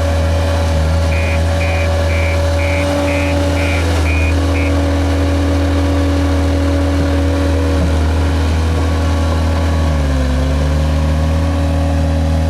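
JCB Robot skid steer loader's diesel engine running steadily as it works, its pitch dipping under load and recovering about ten seconds in and again near the end. A series of short beeps, about three a second, sounds for a few seconds near the start, typical of the machine's reversing alarm.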